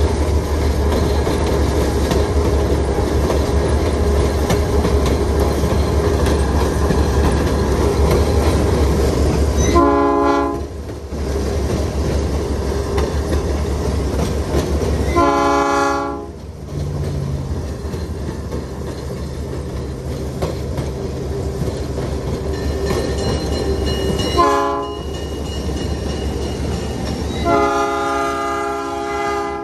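Napa Valley Wine Train diesel locomotive running with a steady rumble of engine and wheels, sounding its multi-note air horn four times: three short blasts spread several seconds apart and a longer one near the end.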